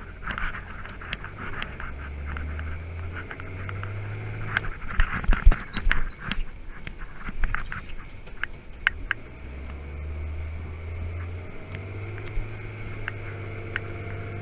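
Truck engine running, heard inside the cab: a steady low drone that steps up in pitch a couple of times, with a burst of loud knocks and rattles around the middle.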